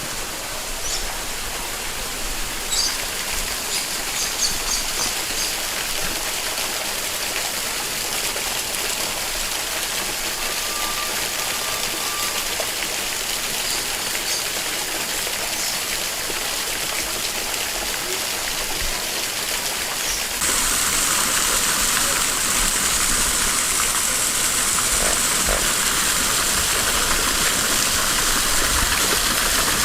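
Steady outdoor hiss with no voices, stepping up louder and brighter about twenty seconds in; a few faint high chirps a few seconds in and a brief steady tone near the middle.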